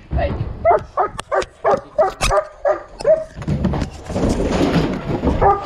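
German Shepherd barking in quick succession, about three barks a second, then a rough scuffling noise of movement close to the microphone from a little past halfway.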